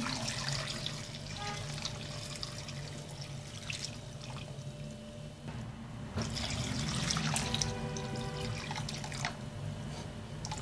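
Water poured from a plastic bowl into a stainless steel pot of diced quince, splashing onto the fruit pieces. The pour eases off about halfway through, then comes on stronger again for the next few seconds.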